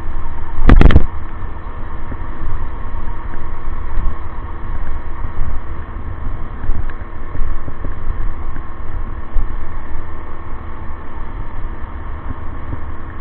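Wind buffeting the microphone of a moving e-bike, over a steady hum from the hybrid e-bike's drive, with one loud bump about a second in.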